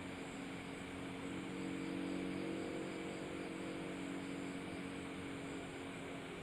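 A steady engine drone under a constant hiss, swelling slightly about two to three seconds in.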